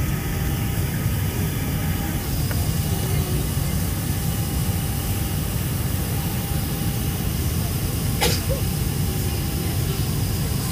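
Cabin noise inside a Boeing 747 descending on approach: a steady low rumble of the four jet engines and airflow with faint steady whine tones above it. A single sharp click comes about eight seconds in.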